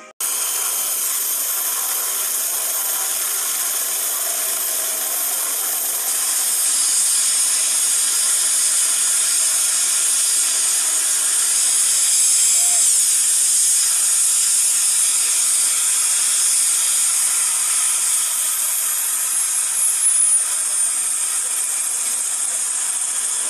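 Turbine helicopter's engine running on the helipad: a loud, steady, high-pitched whine and hiss, a little louder from about six seconds in.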